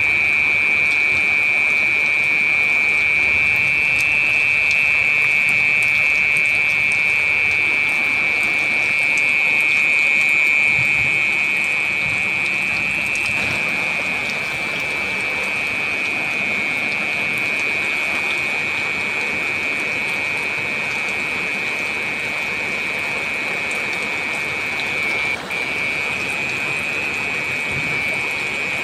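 Heavy rain falling steadily, with a loud, continuous high-pitched whine over it that breaks off for a moment about 25 seconds in.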